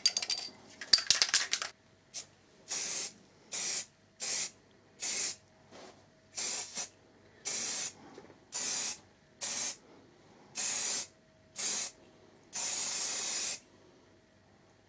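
Aerosol can of satin black spray paint: a quick rattle of clicks as the can is shaken, then about a dozen short hissing sprays in a row, the last one the longest at about a second.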